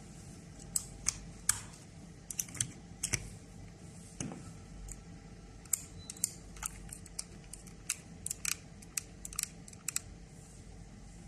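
A run of irregular light clicks and taps from small tools and metal parts being handled, some in quick pairs or clusters, over a faint steady hum.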